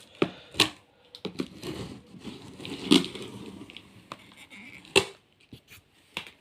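A cardboard box being handled and opened by hand: irregular rustling and scraping with a few sharp knocks, the loudest about three and five seconds in.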